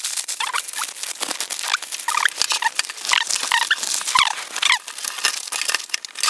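Dense rustling and clicking of a softbox's fabric and frame being handled and assembled, with short high squeaky chirps recurring throughout.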